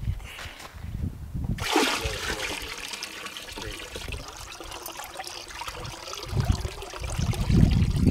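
Cow urine pouring in a steady stream from a bucket into a plastic drum of neem-leaf water, splashing and trickling while the mixture is stirred by hand with a stick. Low rumbles come and go, loudest near the end.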